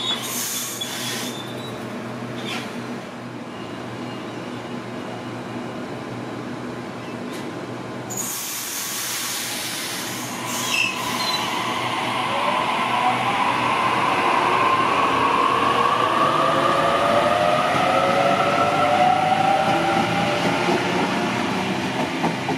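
Double-deck electric suburban train pulling out of a station: a steady low hum with two bursts of hissing, then from about halfway a whine that rises in pitch and grows louder as the train gathers speed past.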